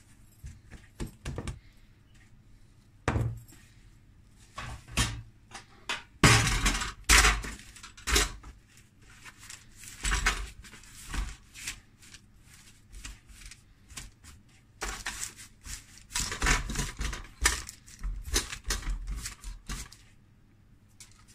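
Irregular knocks, taps and rustles of pizza dough being handled by hand, lifted into a metal baking tray lined with parchment paper and stretched out in it. The busiest clatter comes about six seconds in and again in the last few seconds.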